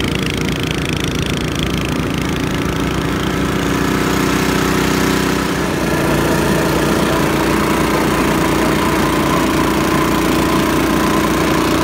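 Tracked gas snowblower's small engine running steadily under load while it clears snow, a little louder about halfway through.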